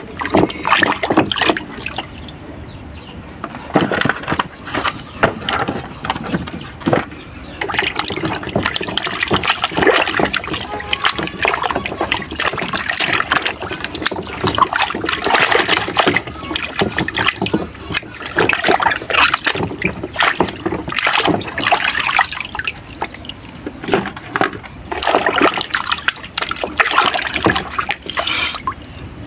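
Water splashing and trickling in irregular bursts as a bunch of plantains is washed.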